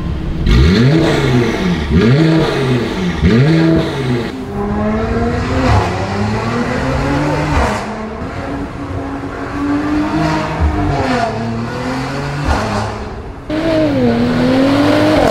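Mercedes-AMG C43's 3.0-litre V6 through an EH Performance aftermarket exhaust with its valves open. In the first four seconds it is revved several times in quick succession with the car standing still. After that come longer pulls under acceleration, the pitch climbing and then dropping back again and again.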